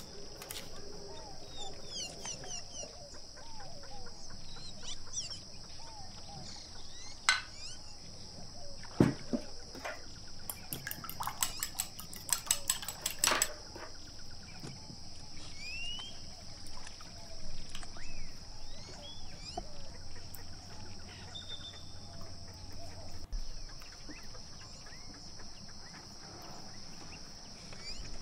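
Small birds chirping in the background in short, scattered calls, over a steady faint high hiss. Sharp clicks sound at about 7 and 9 seconds in, followed by a quick run of even clicks in the middle.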